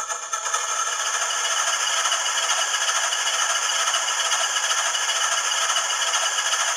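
HO-scale rotary snowplow's DCC sound decoder playing a loud, steady mechanical noise through its small speaker, with no bass. It builds up over the first half second and cuts off suddenly at the end.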